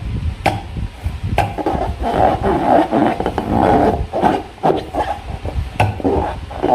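Slime being squeezed and worked by hand, giving repeated wet, sticky squelches in uneven swells, with a few sharp clicking pops.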